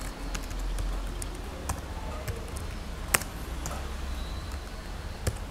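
Computer keyboard typing: scattered, irregular keystroke clicks, one louder click about three seconds in, over a low steady hum.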